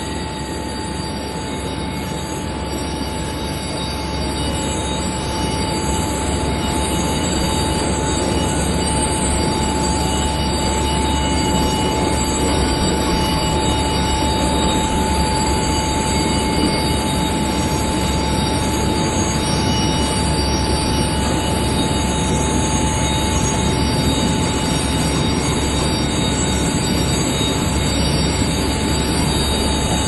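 Jet aircraft engine running steadily: a continuous roar with a steady high whine over it, growing a little louder over the first few seconds and then holding.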